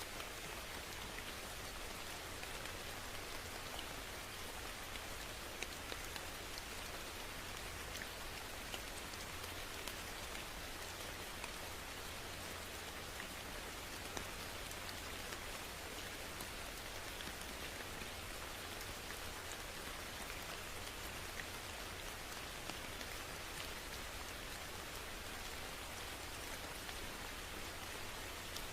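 Steady rain falling, an even hiss with many small individual drops ticking on a surface.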